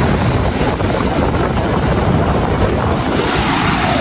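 Wind buffeting the microphone in a steady rumble, with ocean surf washing underneath.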